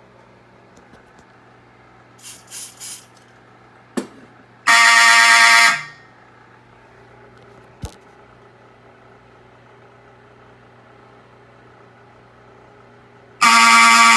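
Fire alarm horn sounding in two short blasts of about a second each, roughly eight seconds apart, each sagging in pitch as it cuts off. This is the brief sounding a fire alarm walk test gives each time a device is tripped. A low hum and a few faint clicks come between the blasts.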